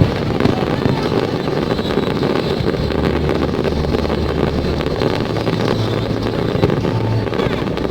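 Fireworks display: a dense, continuous barrage of many bursts running together into a loud rumble with crackle, with a sharp bang at the very start.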